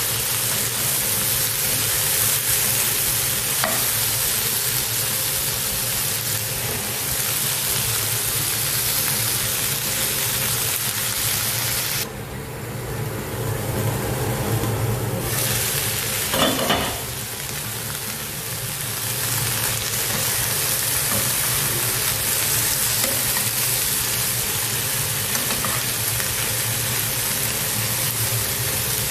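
Green beans sizzling and being stirred in a frying pan, a steady frying hiss over a low hum. About halfway through the sizzle dips for a few seconds as a glass lid is handled over the pan, with a short clink soon after, then the sizzle comes back.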